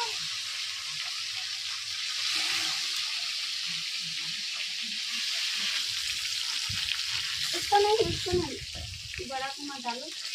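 Turmeric-and-salt-coated rohu fish pieces sizzling steadily in hot mustard oil in a kadhai as they are laid in one by one to fry.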